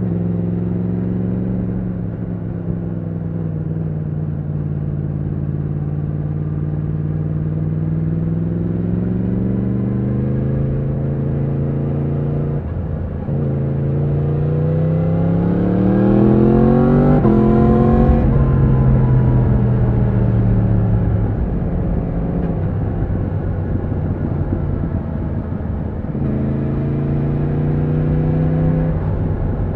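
A 2020 Yamaha MT-10's crossplane inline-four engine under way, its pitch climbing as the bike accelerates. About 13 s in there is a brief break and the pitch drops, a quickshifter upshift, before it climbs again to a peak about 18 s in. Then the throttle closes and the pitch falls and steadies, rising again near the end.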